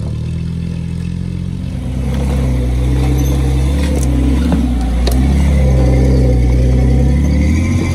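Willys jeep engine working under load as the jeep crawls up a rocky ledge, getting louder from about two seconds in as it comes close and easing off near the end. A couple of sharp knocks about halfway through.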